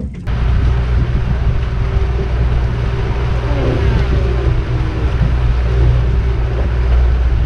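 Boat running under way on a Yamaha 115 outboard: a loud, steady engine drone mixed with heavy wind and water rush, cutting in abruptly at the start.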